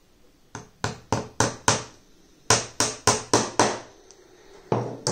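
Small cross-pein pin hammer tapping gimp pins into the softwood bar of a beehive frame. The pins go through the foundation's wire loops to hold the wax foundation in. It comes as two quick runs of about five sharp taps each, then another tap or two near the end.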